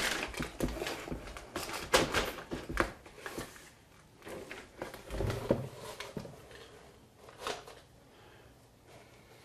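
Wooden picture frame knocking and scraping against a wall as it is fitted onto its nails by its hanging wire and shifted into place by hand: a run of sharp knocks in the first three seconds, a few more around the middle.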